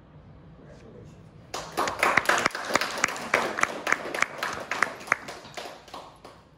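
Applause from a small group of people, starting suddenly about a second and a half in, with single claps standing out, and dying away near the end.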